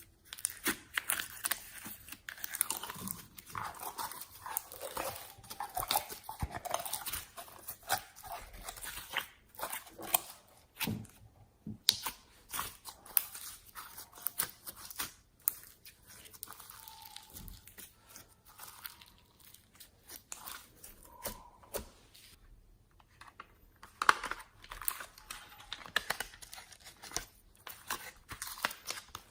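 Slime being squeezed and kneaded by hand, giving dense crackles and small pops. The handling thins out for a stretch in the middle, with a couple of short squeaks, then grows busy again near the end.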